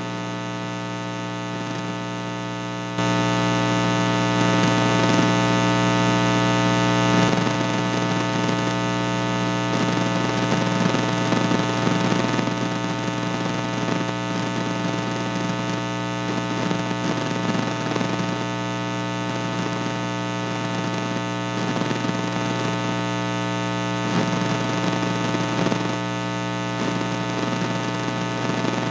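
Steady electrical buzz with a hiss of static, a hum with many overtones, stepping up in level about three seconds in and easing a little a few seconds later.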